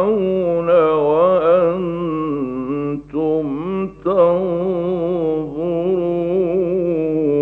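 A man's voice chanting Quranic recitation in the melodic mujawwad style, drawing out long ornamented notes whose pitch wavers and glides, with two short breaks about three and four seconds in. It is an old radio recording with a faint steady low hum underneath.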